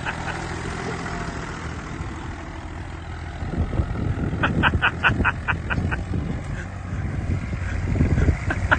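Vintage tractor engine running steadily, then pulling harder and growing louder about three and a half seconds in as it drags a plough through stubble. A quick run of high chirps comes in past the middle and again at the very end.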